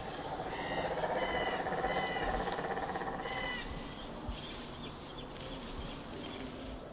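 Woodland animal calls: a rapid pulsing trill lasting about three seconds, with four short high calls over it, then a quieter stretch of forest background.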